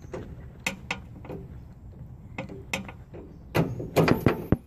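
Scattered metallic clicks and knocks of a hand tool working a battery tray bolt loose inside the front fender well, with a denser run of louder knocks about three and a half seconds in.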